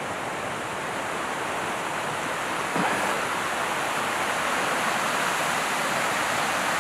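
Rushing water of a small brook running fast over rocks, a steady rush that gets louder about three seconds in.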